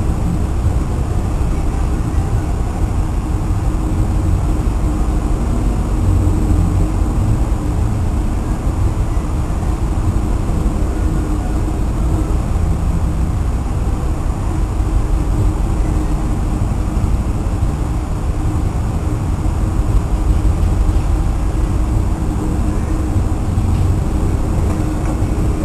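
Strong wind buffeting the microphone over the rush of a rough sea around a ship under way, with a steady low hum underneath.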